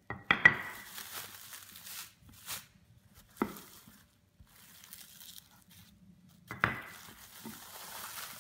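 Plastic cling film crinkling as it is handled around a round of pastry, in two spells, with a single sharp knock about three and a half seconds in.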